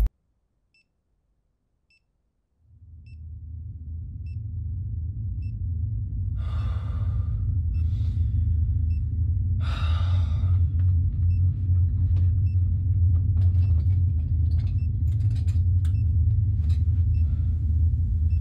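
Horror-film sound design: near silence for the first couple of seconds, then a low rumbling drone fades in and holds. Two short breath-like whooshes rise over it a few seconds apart, followed by scattered faint clicks and ticks.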